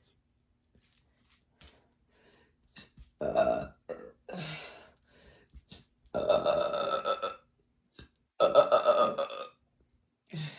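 A woman belching repeatedly with a stomach full of fizzy sparkling water. There are three long, loud belches of about a second each, with shorter ones between them and small mouth clicks before the first.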